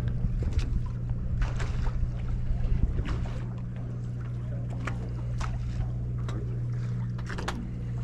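Steady low drone of a large fishing boat's motor, with scattered short clicks and knocks on board.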